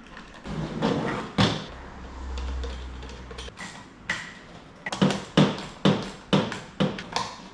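Knocks and clicks of a screwdriver and pool pump parts being handled while the back plate is screwed onto the pump motor. A low hum lasts about two seconds in the middle, and a quick run of sharp knocks comes in the second half.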